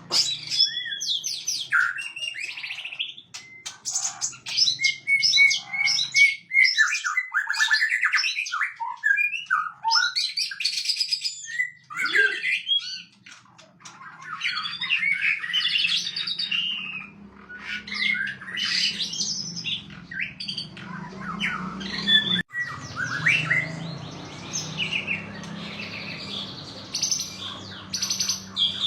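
White-rumped shama (murai batu) singing a long, varied song of whistles, trills and rapid notes in phrases broken by short pauses. A low steady hum runs underneath from about halfway through.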